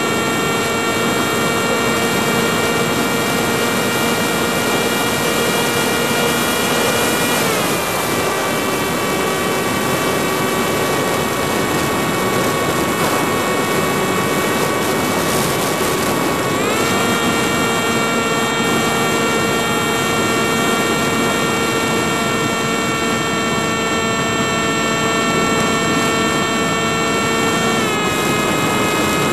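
FPV racing quadcopter's motors and propellers heard from the onboard camera: a loud, steady whine over a rushing noise. The pitch drops about a quarter of the way in, rises again around the middle, and drops once more near the end as the throttle changes.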